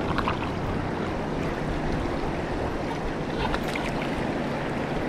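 Fast, shallow river water rushing over stones around a wading angler: a steady rush of moving water, with a few faint clicks.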